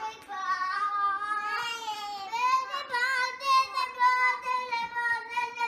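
A toddler singing in a high voice: a few short wavering notes, then one long held note through the second half.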